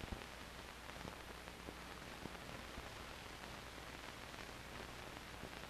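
Steady faint hiss of an old 16mm film soundtrack, with a few faint clicks and pops and a low hum.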